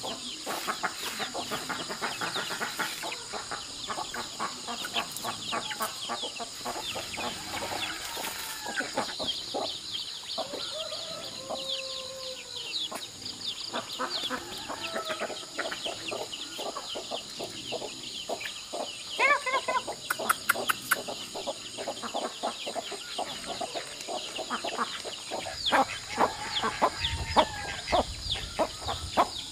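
A flock of young chickens feeding on scattered grain: rapid pecking taps on the ground with soft clucks and short calls throughout. Chicks peep near the end.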